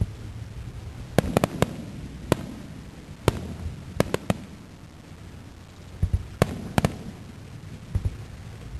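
Aerial fireworks bursting: a dozen or so sharp bangs in irregular clusters, several in quick succession about a second in, around four seconds in, and again near the end, over a steady low rumble.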